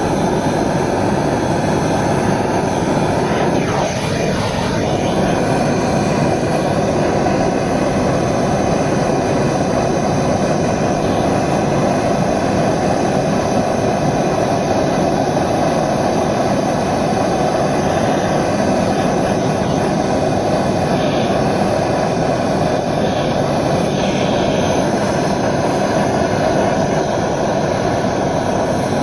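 Handheld gas torch flame burning steadily with a constant rushing hiss, heating a copper pipe joint for soldering.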